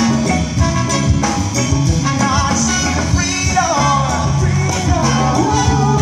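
Live band playing with an even beat: congas, drum kit, bass and guitar. Singing comes in over the band about halfway through.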